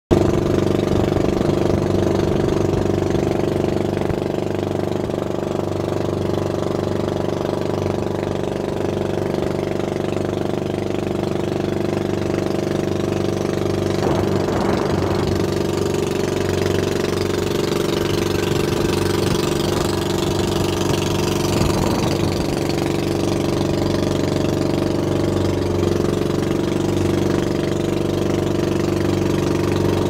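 Small boat's motor running steadily at cruising speed, an even drone without change of pitch, over the rush of water along the hull, with a couple of louder splashes about halfway through and again later on.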